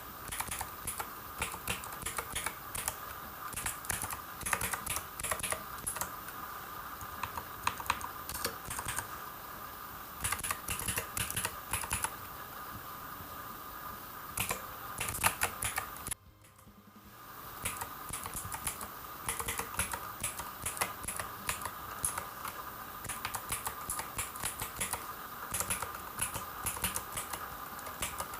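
Typing on a Havit 87 mechanical keyboard fitted with custom keycaps: a steady run of key clacks over a faint steady hum, with a brief pause about sixteen seconds in before the typing resumes.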